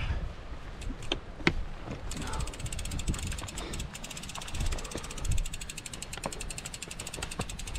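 Mountain bike's freewheel hub ticking rapidly and evenly as the lifted rear wheel spins freely, starting about two seconds in. A few sharp knocks come first as the bike is hoisted onto the shoulder, over a low rumble of wind on the microphone.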